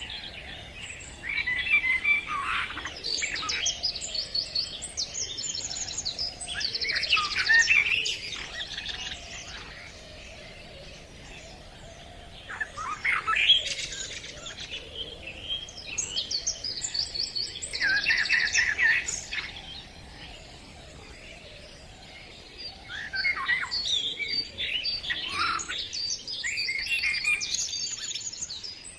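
Songbirds singing, several rapid chirping and trilling phrases overlapping, in three long bouts with quieter pauses between them.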